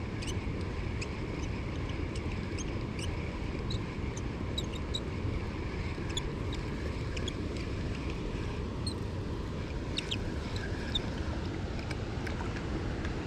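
Steady low rumble of wind on the microphone, with faint short bird chirps scattered through it.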